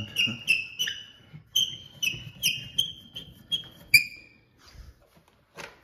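Toggle bolt turned by hand through a wooden mounting board, squeaking with each twist: a string of short high squeaks, two or three a second, that stops about four seconds in.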